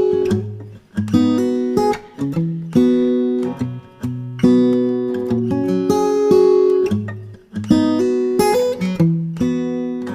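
Background music: acoustic guitar strummed and plucked in repeated chords that ring and fade.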